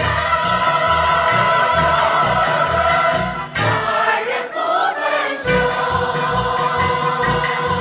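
Mixed choir singing long held chords with instrumental accompaniment and light, regular percussion strokes. About halfway through, the held chord breaks off for a short moving passage. The choir comes back in on a new held chord about two seconds later.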